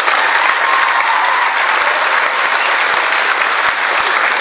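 Audience applauding steadily: many hands clapping together in a dense, even stream.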